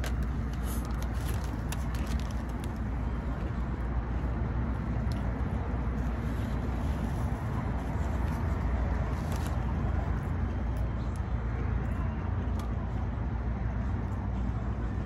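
Steady low rumble of road traffic, with the crisp crunches of a hard-shell taco being bitten and chewed, mostly in the first few seconds and now and then after.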